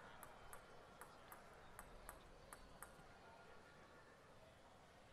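Faint ticks of a table tennis ball being bounced before a serve. They come in pairs about a third of a second apart and stop about three seconds in, leaving near silence.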